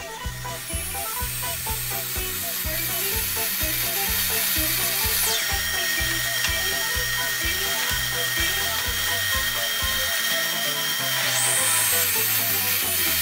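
Makita table saw running with a high motor whine while cutting a birch board. The whine comes up just after the start, drops in pitch about 5 seconds in and rises again near 11 seconds. Background music with a steady guitar beat runs underneath.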